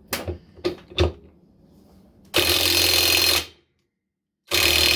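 A few knocks as the tool is fitted to the bolt, then a heavy-duty impact wrench hammering in two loud bursts of about a second each, one about two and a half seconds in and another near the end. It is breaking loose a rusted bolt on a washing machine's motor.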